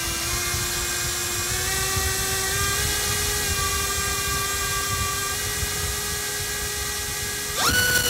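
iFlight XING X2207 2750KV brushless motor spinning a Gemfan 5149 propeller on a thrust test stand: a steady whine that steps up in pitch a few times as the throttle is turned up, then jumps sharply higher and louder near the end.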